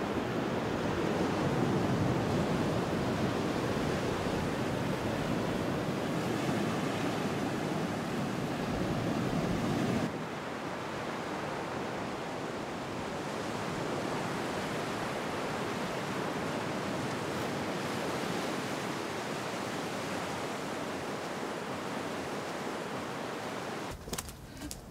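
Sea surf breaking on a beach, with wind: a steady rushing noise. About ten seconds in it drops to a quieter, thinner wash.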